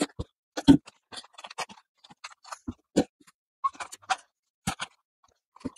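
Repotting work at a table: small pots and potting soil being handled, giving a scatter of light clicks, taps and knocks with short pauses between them. The loudest is a knock a little under a second in.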